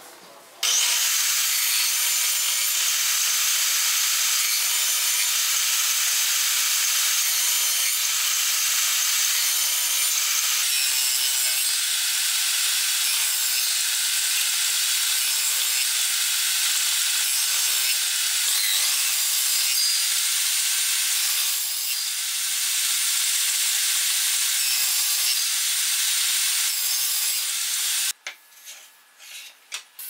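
Table saw running and ripping a thin wooden board along the fence, a loud steady cutting noise that starts about a second in and cuts off a couple of seconds before the end. A few light knocks follow.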